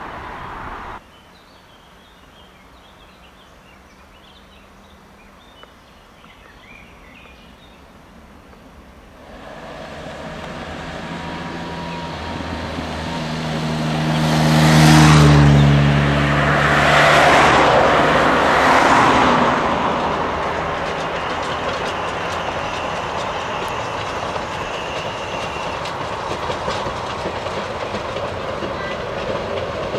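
Narrow-gauge steam locomotive 83-180 (JŽ class 83) and its train approaching and crossing a viaduct. The running sound builds from about a third of the way in and is loudest in the middle, with a low held tone. It then settles into a steady rumble with wheel clatter. Road noise from a moving car is heard briefly at the start and cuts off about a second in.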